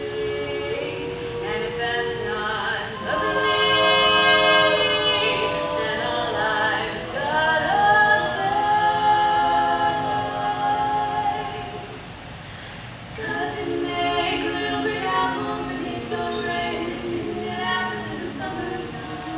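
Women's barbershop quartet singing a cappella in close four-part harmony, holding long chords that swell loudest around the middle. The singing briefly drops away about twelve seconds in, then goes on.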